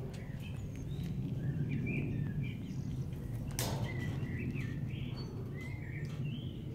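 Small birds chirping on and off over a steady low background rumble, with one sharp click about halfway through.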